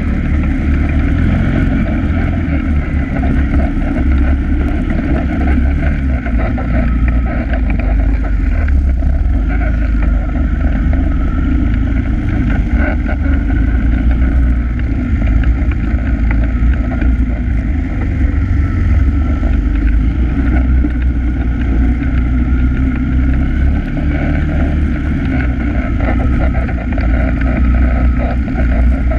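ATV engine running steadily under way, heard from the rider's own quad, with a heavy low drone.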